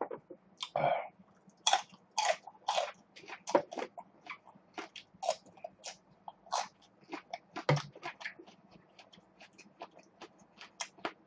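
Close-miked eating sounds: irregular chewing and wet mouth clicks from someone eating beef short-rib soup with rice and kimchi, a quick uneven run of short pops and smacks.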